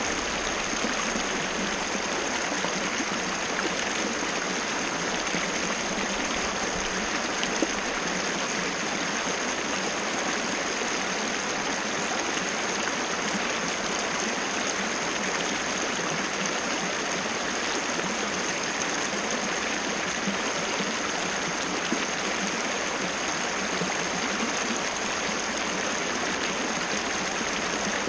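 Waterfall: water cascading in a steady, unbroken rush, with a thin steady high-pitched whine above it.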